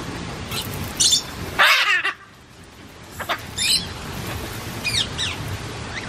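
Parrots calling: a string of short, shrill squawks and screeches, several sweeping downward in pitch. The loudest is a harsh screech about two seconds in.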